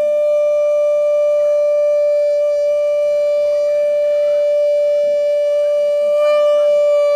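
Conch shell (shankh) blown in one long, steady, unwavering note at the close of the aarti.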